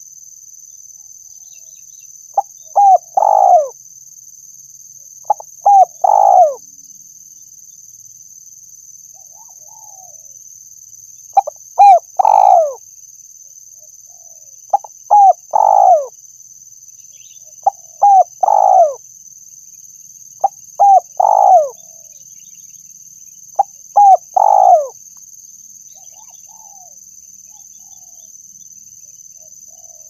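Spotted dove (tekukur) cooing: seven repeated phrases, each two short notes followed by a longer note that falls in pitch, coming about every three seconds with one longer pause partway through.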